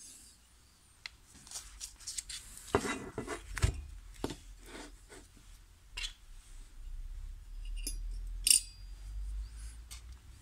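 Small steel parts of a decompressor valve (spring, washers, lever) clinking and knocking against a finned aluminium Malossi cylinder head and the workbench as they are handled and fitted: a string of light clicks and taps, with one sharper clink near the end.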